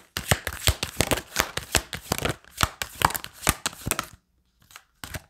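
A deck of round oracle cards shuffled by hand: a quick run of cards flicking and slapping against each other for about four seconds, then it stops, with a couple of faint ticks near the end.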